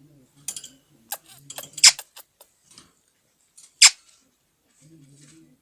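Indian ringneck parrot making a few short, harsh, rasping sounds, the two loudest about two and four seconds in.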